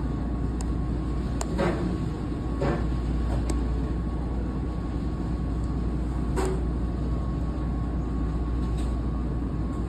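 Steady background hum and whir of a fast-food restaurant's machinery, with a faint steady high whine running through it and three short knocks, the clearest about six and a half seconds in.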